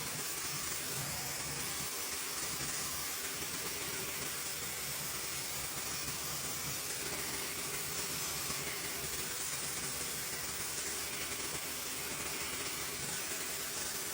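Tideway hair dryer running steadily, a constant airy hiss of blown air and motor.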